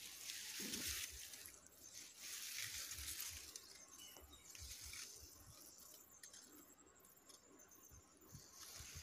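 Faint rustling of ripe rice plants brushed by hand and body, with scattered soft low thumps from the phone being handled.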